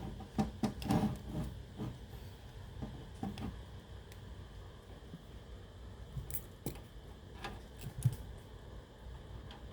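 Irregular small clicks and taps of hands and tools handling the cassette player's small parts, several close together at first, then a few scattered ones.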